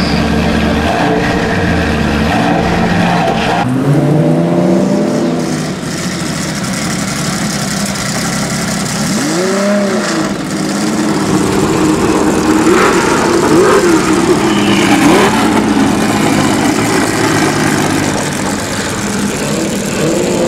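Racing car engines running, blipped up and down a few times so the engine pitch rises and falls, over a steady background of engine noise.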